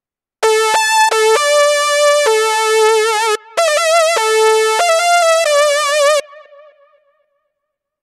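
Cherry Audio Chroma software synthesizer, an emulation of the Rhodes Chroma, playing its 'Little Saw Lead' preset: a bright, buzzy sawtooth lead playing a short melody one note at a time. The later held notes waver with vibrato. The phrase stops about six seconds in with a brief fading tail.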